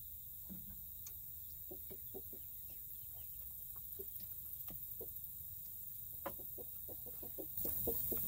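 Domestic hens clucking in short, scattered clucks as they file into the coop through its pop door. A louder steady hiss comes in near the end.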